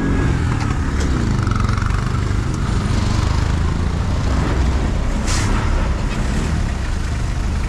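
Motorcycle engine running at low speed in roadside traffic, a steady low rumble, with a short hiss about five seconds in.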